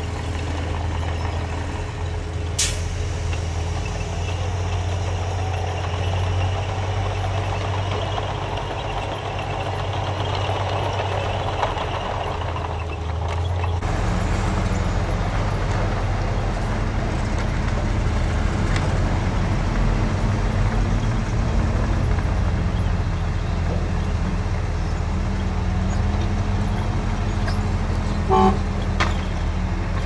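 Diesel dump truck engines running heavily. About fourteen seconds in the sound cuts to a truck tipping its bed, its engine note wavering as the bed rises. There is a sharp crack about two and a half seconds in, and a short horn toot near the end.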